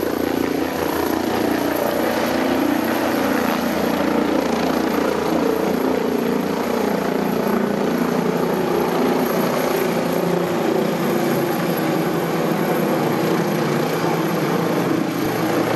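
AgustaWestland AW169 helicopter with its twin Pratt & Whitney Canada PW210A turboshaft engines running, a steady noise of rotors and turbines.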